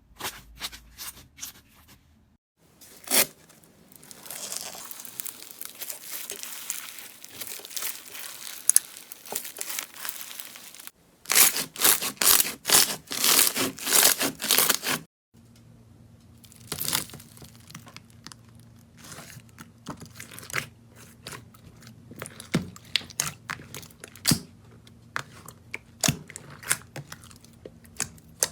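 Slime being squeezed and stretched by hand, giving sticky crackling and sharp clicking pops, in a few short clips that cut abruptly from one to the next.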